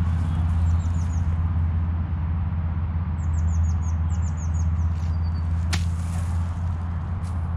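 A golf iron strikes the ball once on a short chip shot, a single sharp click about three-quarters of the way through, over a steady low rumble. Small birds give quick runs of high, falling chirps.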